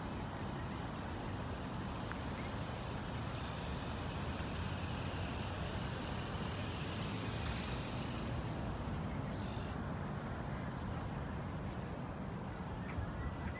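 Steady low rumble of distant city traffic with some wind noise, and a higher hiss that fades away about eight seconds in.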